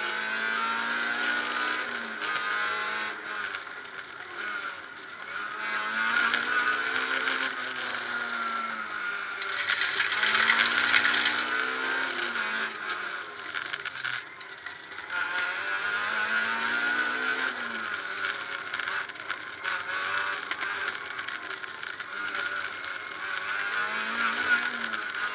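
Peugeot 306 rally car at full stage speed, heard from inside the cabin: the engine revs climb and fall again over and over as the driver works through the gears, over steady tyre and road noise.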